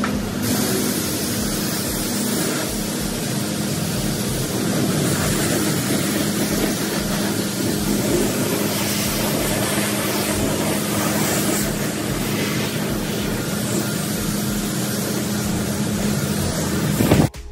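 Self-serve car wash high-pressure wand spraying water onto a car: a steady hiss with a low hum under it, cutting off abruptly near the end.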